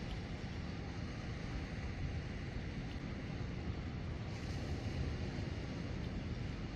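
Wind buffeting the microphone over the steady wash of sea water at the shore, with a short brighter hiss about four and a half seconds in.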